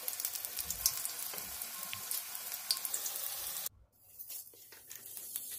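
Pakoras frying in hot oil in a kadai: steady sizzling with many small crackles. The sound cuts off suddenly a little after three and a half seconds, then comes back fainter.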